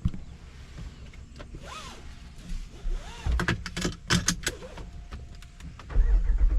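Scattered clicks and short tones, then, about six seconds in, the Jeep Wrangler Rubicon 392's 6.4-litre HEMI V8 starts and runs loudly.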